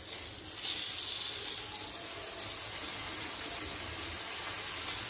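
Steady hissing sizzle from an enamel pot of cooked rice and fried chicken pieces heating on the stove, setting in sharply under a second in and holding level.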